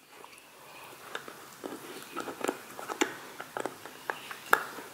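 Pembroke Welsh Corgi puppy gnawing a cow hoof chew: irregular hard clicks and scrapes of teeth on the hoof, the loudest near the end.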